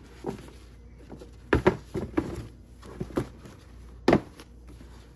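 Handling noise of a leather sneaker being picked up and turned over in cotton-gloved hands: irregular knocks and rustles, the loudest about a second and a half in and again about four seconds in.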